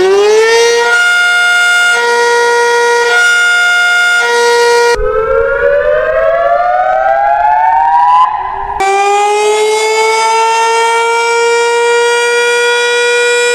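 Outdoor tornado warning sirens, several in a row. The first levels off at full pitch and swells and fades in loudness about once a second. About five seconds in, a second siren winds up, rising steadily in pitch. After a brief break near eight seconds, a third holds a steady tone.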